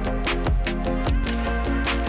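Electronic background music with a steady beat and a heavy bass line.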